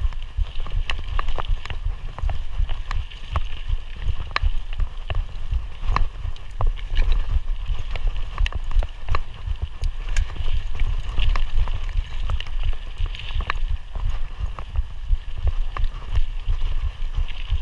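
Mountain bike being ridden over rough trail: the bike rattles and clicks irregularly over bumps, with a constant low wind rumble on the microphone.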